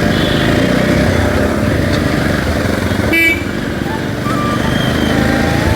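Jawa 42 motorcycle's single-cylinder engine running on the move, with wind noise on the microphone. A short horn toot sounds about three seconds in.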